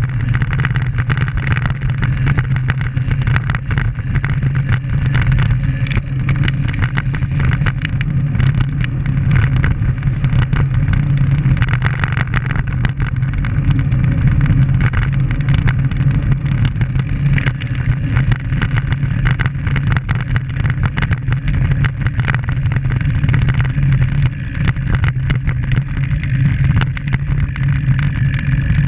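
Wind rushing over the microphone of a camera mounted on a moving road bike: a steady, loud, low rumble.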